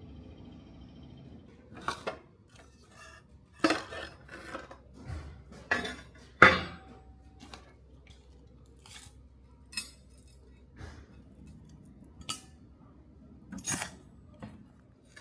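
Metal pieces or tools clinking and knocking as they are handled and set down: about a dozen irregular sharp strikes, the loudest about six and a half seconds in.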